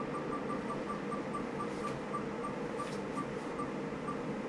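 Ticking of an online spin-the-wheel name picker spinning on a laptop, the ticks slowing from about five a second to about two as the wheel loses speed, over a steady background hiss.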